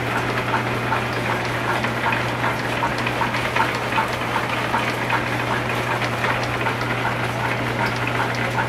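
Belt-driven line shaft machinery and an antique drill press running: a steady, dense crackle of small irregular ticks from the belts and gearing over a constant low hum.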